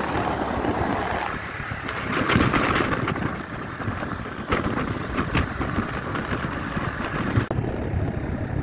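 Wind buffeting the microphone of a moving motorcycle, over the low, steady run of its engine and road noise, rising and falling unevenly in gusts.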